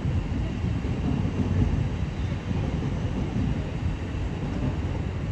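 Steady low rumble of a train at a station platform.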